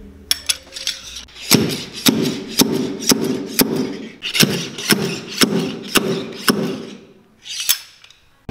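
A long steel rod driven up and down inside a leather cowboy boot, striking the inside of the new sole in a steady rhythm of about two strokes a second, after a few light metal clicks as the rod is fitted. One more knock comes near the end.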